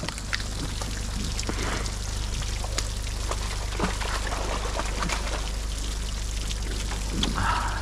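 Water pouring and trickling from a fish-delivery tank of live brown trout, steady, over a low steady hum.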